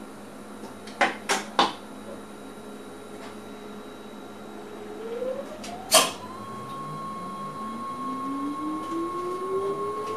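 Inside an electric train's cab: three quick sharp clicks about a second in and a louder clack near the middle, after which the traction drive's whine starts low and rises steadily in pitch as the train picks up speed, with a steady high tone alongside it.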